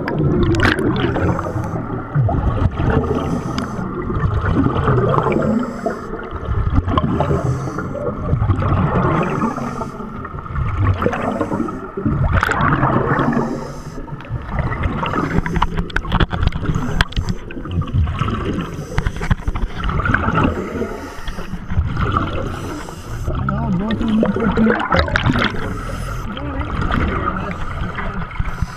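Diver breathing underwater through a full-face mask: exhaled air bubbles and gurgles in irregular surges every couple of seconds, over a steady hum.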